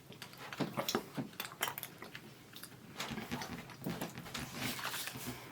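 Someone eating orange milk chocolate with popping candy: irregular crackles and clicks of chewing and the candy popping.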